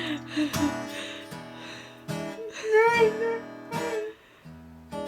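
Acoustic guitar strummed, with chords struck every second or so: the instrumental opening of a song.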